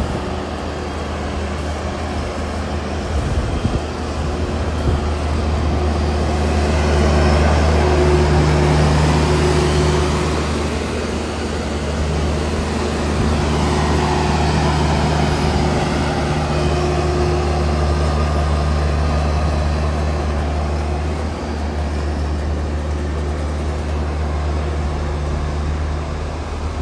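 Heavy farm machinery diesel engine running steadily with a deep hum, swelling louder twice as it works.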